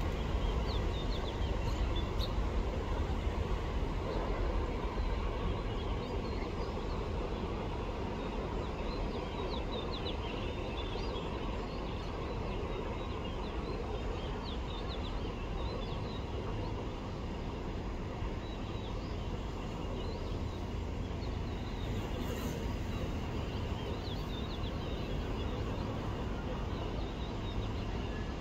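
Small birds chirping, many short high calls scattered throughout, over a steady low rumble of outdoor background noise.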